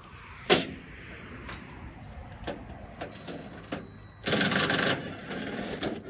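Hands and tools working in an open electrical distribution box: a sharp click about half a second in, a few lighter clicks and knocks, and a brief burst of handling noise about four seconds in.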